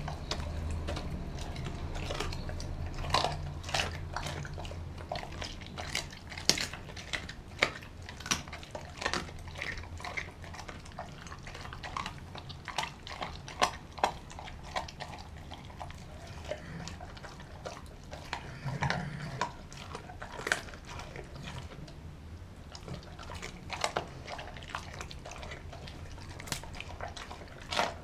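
Doberman eating raw chicken from a glass bowl: wet smacking and chewing, with irregular sharp clicks of teeth and meat knocking against the glass.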